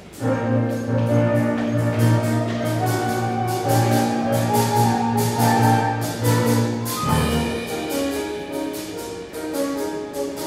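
Instrumental accompaniment for a stage musical, with orchestra and brass playing sustained notes over a steady beat of about three strokes a second. About seven seconds in, the low bass drops out and the music changes to a lighter passage.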